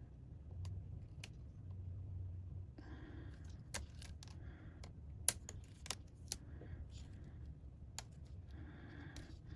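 Scattered light clicks and taps, about a dozen at uneven spacing, from small tools and parts handled during laptop disassembly; the sharpest tap comes a little past halfway. A faint low hum runs underneath.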